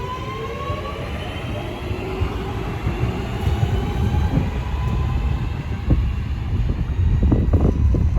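Class 323 electric multiple units pulling away, their traction motors giving a whine that rises slowly in pitch. The whine fades after about a second into a low rumble of wheels on track that grows louder near the end.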